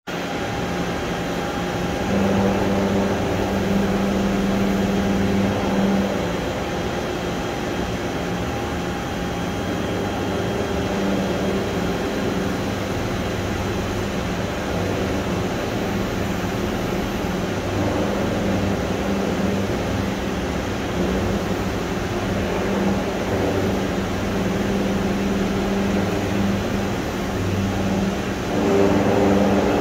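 Toshiba BP-150 horizontal boring mill running under power: a steady machine hum with a few low tones that come and go. It grows louder from about two to six seconds in and again near the end.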